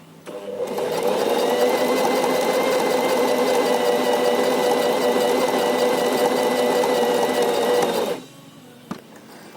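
Portable electric sewing machine running and stitching, picking up speed over the first second, then running steadily for about seven seconds before stopping suddenly.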